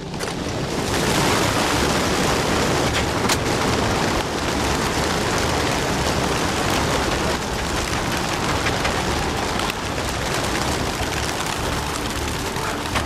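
A large flock of racing pigeons taking off together from the open compartments of a transport truck, their wings making a dense rush of flapping that builds up about a second in and stays loud.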